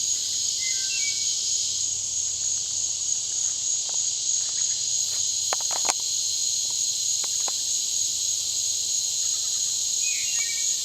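Steady, unbroken high-pitched drone of an insect chorus, a constant pitch without breaks, with a few faint clicks about five to six seconds in.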